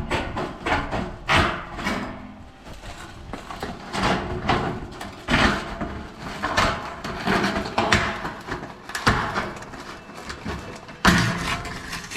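Tin snips cutting a corrugated metal roofing sheet: a rapid run of crunching snips at first, then irregular snips with the thin sheet flexing and rattling, and a sharp metallic bang about eleven seconds in.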